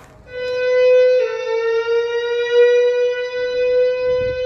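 Fire alarm evacuation tone from a voice-alarm system's loudspeakers, sounding between spoken messages: a loud, steady, buzzy tone that steps down slightly in pitch about a second in and holds there.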